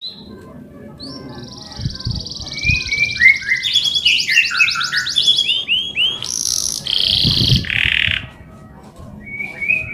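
Male canary singing: a fast rolling trill that climbs in pitch, then repeated downward-sweeping chirps and a few loud harsh notes, with a short lull near the end before the song picks up again. A few low thumps sound under the song, about two seconds in and again around seven seconds.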